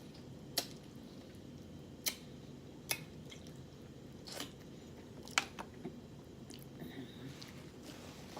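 A person chewing rotisserie chicken, with wet mouth smacks making about half a dozen sharp clicks spread through, the loudest about five seconds in.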